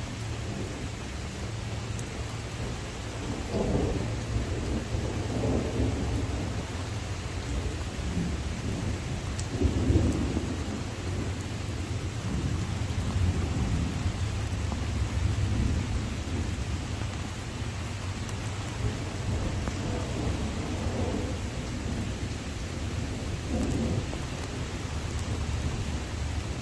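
Thunderstorm: steady rain with several long rolls of thunder, the loudest about ten seconds in and more near the end.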